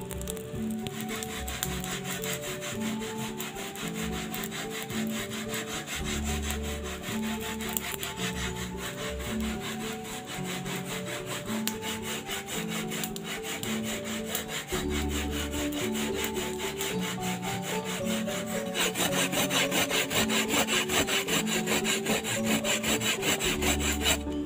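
Coconut being grated by hand on a flat metal grater: a fast, even run of rasping strokes that grows louder about three-quarters of the way in. Background music plays underneath.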